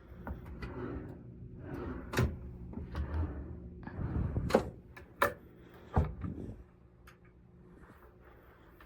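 Cabin doors and cupboards being handled: half a dozen clicks and knocks with rustling between them, over a steady low hum, settling down for the last couple of seconds.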